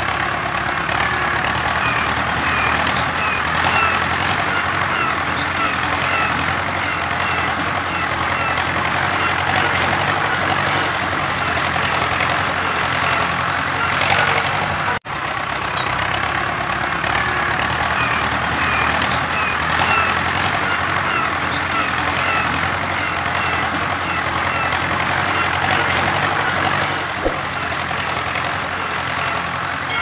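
Tractor engine running steadily, a continuous low engine hum at an even level. It drops out for an instant about halfway through, then resumes.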